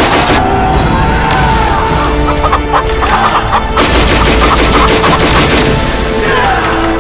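Added sound effects over music: rapid gunfire, then chicken clucking and squawks for about three seconds, then a second burst of rapid gunfire about four seconds in that lasts about two seconds, and more clucking near the end.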